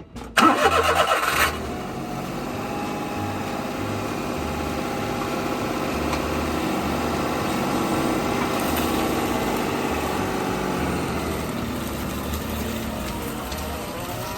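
Daihatsu Naked's three-cylinder 660 cc engine starting: a brief loud burst as it cranks and catches, then a steady idle.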